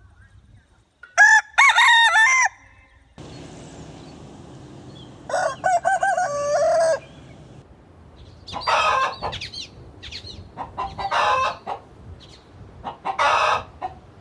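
Roosters crowing: a crow about a second in and a longer one ending on a held note around six seconds in, followed by three shorter, harsher calls from chickens.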